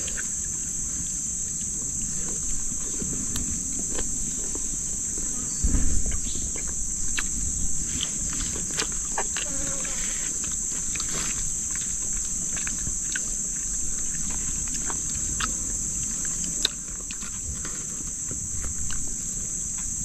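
Steady high-pitched drone of an insect chorus, with small clicks scattered through it and a low bump about six seconds in.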